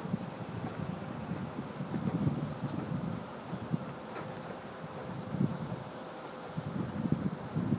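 Low, uneven rumble of a vehicle driving along, heard from inside the cab, with a high, rapid, evenly pulsing trill running throughout.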